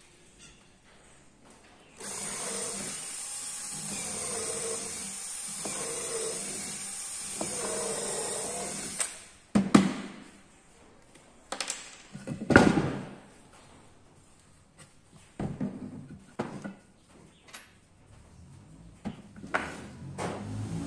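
An electric power tool runs and cuts wood for about seven seconds, starting about two seconds in, its note wavering as it works, then stops abruptly. Several sharp wooden knocks and clatters follow, the loudest about halfway through.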